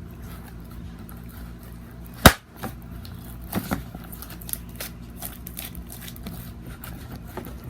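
A single sharp click or knock about two seconds in, then a few softer clicks, over a steady low hum.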